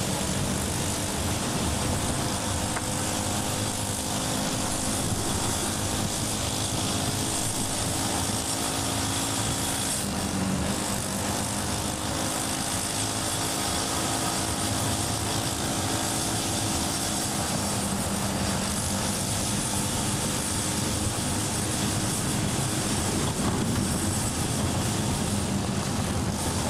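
Riding lawnmower engine running flat out, with steady engine drone and tyre rumble on a gravel road. The drone's pitch shifts about ten seconds in.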